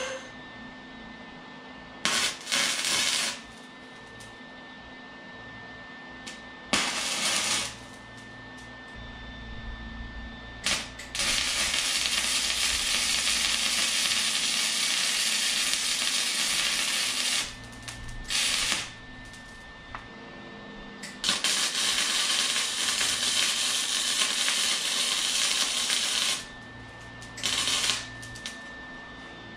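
Arc welding on a steel frame: the arc crackles and sizzles in short tacks and longer beads. There are a few brief tacks of about a second, and two long runs of about six and five seconds, with quiet pauses between them.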